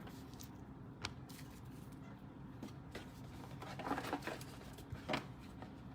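Trading cards and packs being handled: a few faint clicks and a short rustle about four seconds in.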